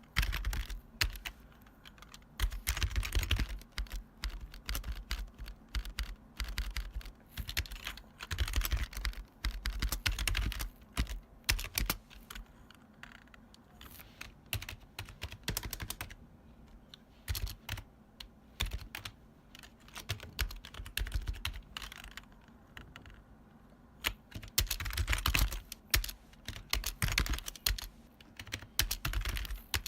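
Typing on a retro long-travel mechanical keyboard: loud, clacky keystrokes in fast runs of a few seconds, broken by short pauses.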